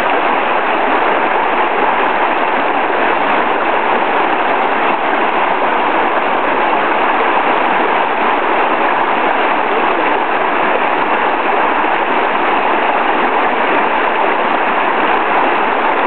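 Rushing water of a shallow rocky brook tumbling over rapids, a steady loud rush heard from right in the stream.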